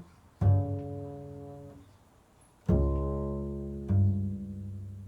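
Improvised instrumental music: three low pitched notes, each starting sharply and ringing as it fades, the last still sounding at the end.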